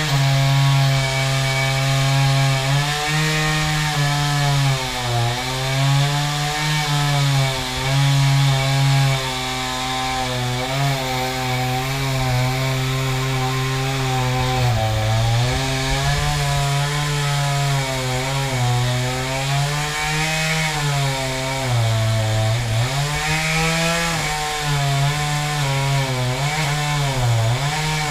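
Two-stroke chainsaw running at high revs, its pitch sagging and recovering several times as it bogs down in the cut.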